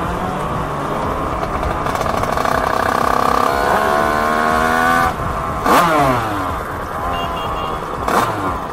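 Motorcycle engines on a group ride. The revs climb steadily and drop back at gear changes, about three and a half and five seconds in. A sharp falling sweep comes about six seconds in.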